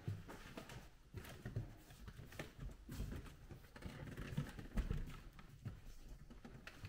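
Footsteps on a wooden parquet floor: irregular soft thumps and knocks in a small, echoing room.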